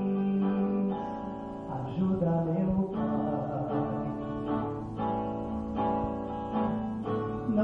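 Song music with a strummed acoustic guitar: sustained chords changing every second or so.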